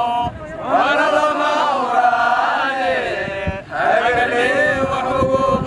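A group of soldiers chanting together in unison, in long drawn-out phrases with short breaks between them.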